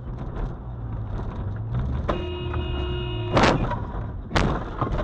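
Car engine and road noise heard from inside a moving car; a car horn sounds for about a second, then a loud bang of a collision, followed by a second sharp bang about a second later.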